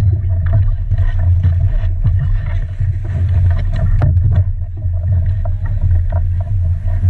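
Bangka outrigger boat being pushed and poled through shallow water: irregular splashes and knocks of hull and pole over a steady low rumble.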